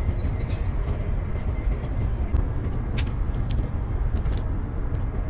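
Steady low rumble of a moving vehicle heard from inside, with a few faint clicks, one about three seconds in.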